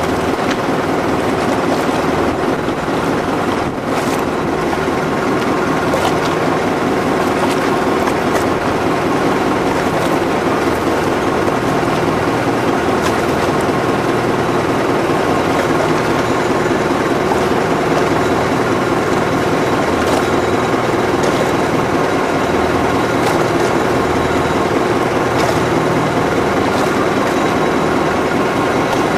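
Steady drone of a riverboat's engine running, heard from on board, with a constant hiss over it.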